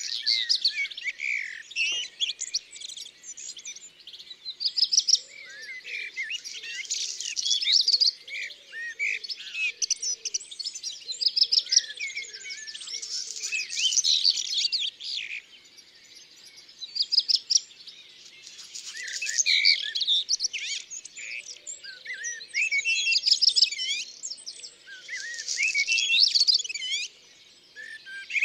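Several songbirds singing and chirping together, dense phrases of quick, high chirps and trills coming in bursts a few seconds long with brief lulls between them.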